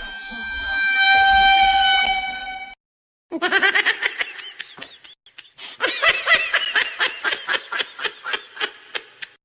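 Goofy meme sound effects: a held horn-like blare for almost three seconds, then after a brief gap a fast run of short, squeaky pitched bursts that rise and fall, several a second, fading toward the end.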